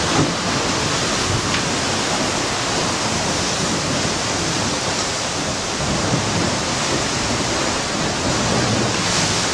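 Steady rushing noise of wind and water, even and unbroken.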